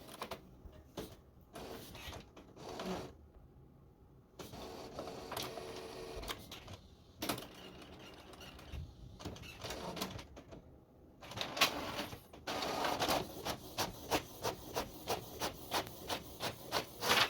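Canon TR8520 inkjet printer running a black print job: scattered whirring and clicking of its feed and head mechanism, then from about twelve seconds in a quick, even run of strokes, about two or three a second. The print head's nozzles are clogged with dried ink, so almost nothing is printed.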